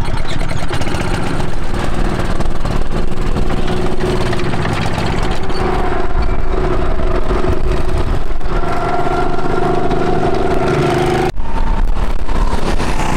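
Small five-horsepower go-kart engine running under way as the kart drives around the track, its pitch held steady through the middle of the stretch. The sound breaks off for an instant about eleven seconds in.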